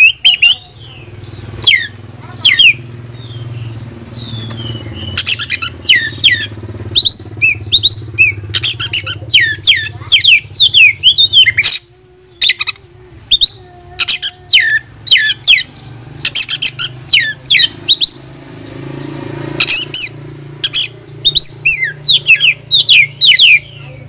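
Oriental magpie-robin singing loudly in full song: fast runs of sharp, sweeping whistled notes in bursts with short pauses, a rival-challenging song that provokes other magpie-robins to answer.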